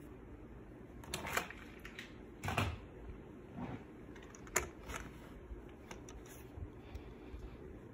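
Handling noise: a few scattered light clicks and knocks as a small die-cast toy truck is set down and moved about on a wooden tabletop, the loudest knocks a little over a second in and about two and a half seconds in.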